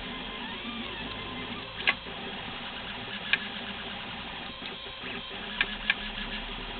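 RepRap Prusa Mendel 3D printer running mid-print, its stepper motors whining with short rising and falling pitch sweeps as the axes move. A few sharp clicks stand out above the steady machine noise.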